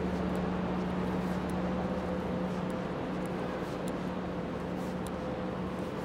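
Steady city street noise: a constant traffic hum with a steady low drone running under it.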